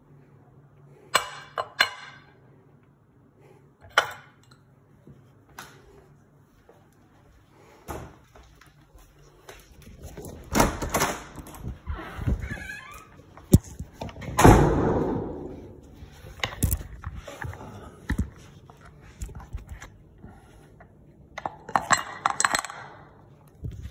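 Handling noise: irregular knocks, clinks and rustles, with a louder clatter about fourteen and a half seconds in.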